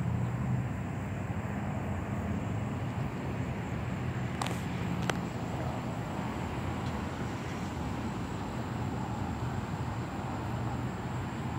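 Steady outdoor background noise of a parking lot: a low hum with distant road traffic. A short click about four and a half seconds in and another half a second later.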